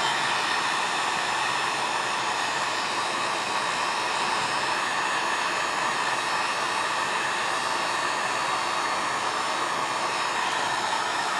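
Electric heat gun running on its low setting: a steady fan-and-air rush with no breaks.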